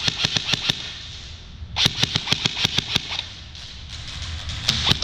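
Airsoft guns firing BBs in rapid bursts of sharp cracks, about eight shots a second. One burst is already going at the start and stops within a second. Another burst comes about two seconds in and lasts about a second, and a few single shots follow near the end.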